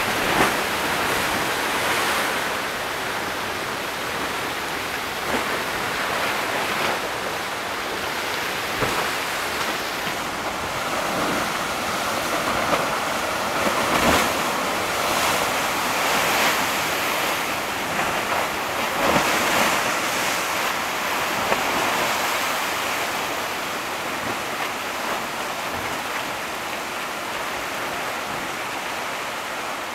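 Heavy Pacific surf washing and crashing over basalt rocks: a steady rush of churning water with a few louder surges.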